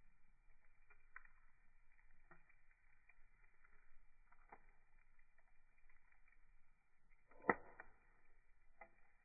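Wood fire crackling faintly, with scattered small pops and one sharp, much louder pop about seven and a half seconds in.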